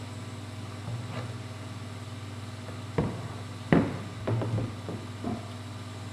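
Several sharp knocks and handling clatters, clustered from about three to five and a half seconds in, over a steady low hum.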